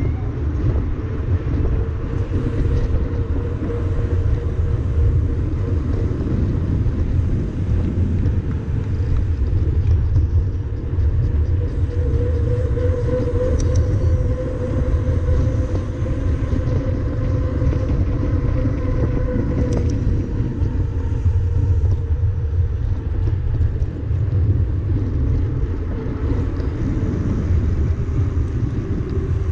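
Steady wind rumble buffeting the microphone of a camera riding on a mountain-bike tandem rolling along pavement, with a faint steady hum that wavers slightly over it.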